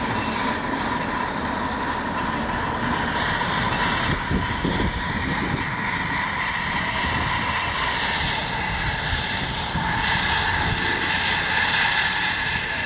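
A 7.25-inch gauge live-steam Clishay beam-engine locomotive running along the track, hauling loaded ridecars, with a steady mix of engine and rail noise.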